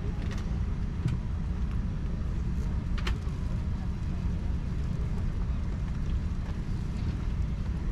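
Steady low hum of a Boeing 787-10 economy cabin on the ground, with the air conditioning running. Faint passenger voices and a few light clicks ride over it; the clearest click comes about three seconds in.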